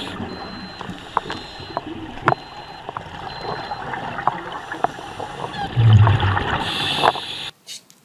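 Underwater sound of a scuba diver breathing out through the regulator: bubbles rushing and gurgling, loudest in a burst just before six seconds, with scattered clicks. It cuts off about seven and a half seconds in.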